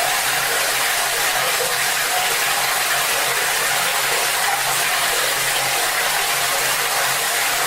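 Tap water running hard into a bucket: a steady, unbroken gush of water with a faint low hum underneath.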